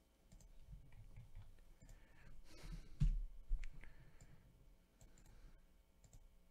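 A few scattered computer mouse clicks, two louder ones about three seconds in.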